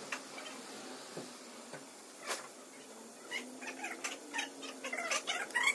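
Small metal throttle-body parts clicking and knocking as they are handled and worked on by hand, with a few short squeaks. The clicks come thick and fast in the second half.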